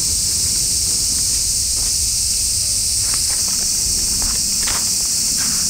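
Steady high-pitched buzzing of a summer insect chorus, with a few faint footsteps and knocks of camp gear being carried underneath.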